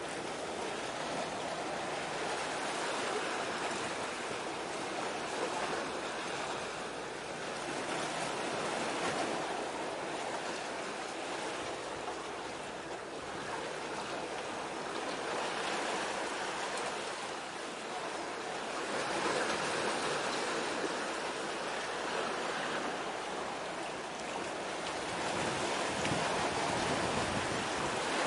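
Waves washing on the shore: an even rushing that swells and fades every few seconds.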